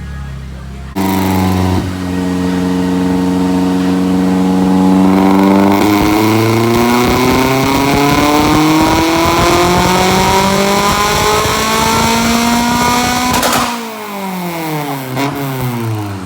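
Honda Prelude's H22A4 four-cylinder, run through headers and a single muffler, doing a full-throttle dyno pull: the revs climb steadily for about twelve seconds, getting louder about five seconds in, then drop quickly as the throttle is let off near the end.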